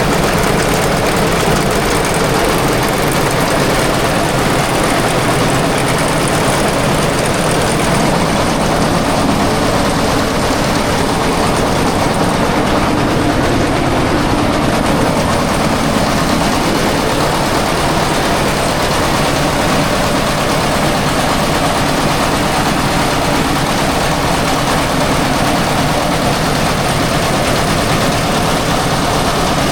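Engine-driven threshing machine running steadily and loudly, its engine noise and threshing drum making an even din with no breaks.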